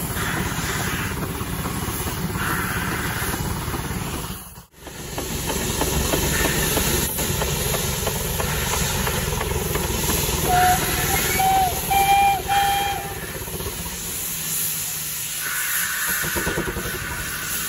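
Steam rotary snowplow cutting through deep snow: a steady rush of steam and thrown snow, with a run of about four short steam-whistle blasts a little past halfway.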